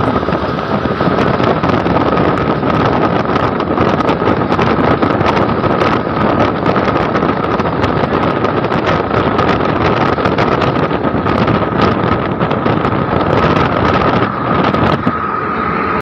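Steady rush of wind and road noise in a moving bus, with a steady high whine running underneath.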